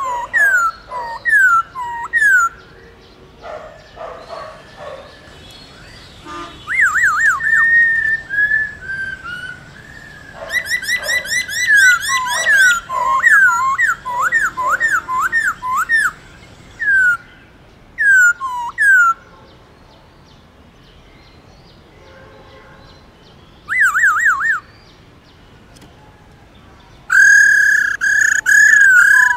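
Black-throated laughingthrush singing: loud, clear, down-slurred whistles, one after another and in fast runs, broken by pauses of a few seconds. Near the end it holds a long rapid trill.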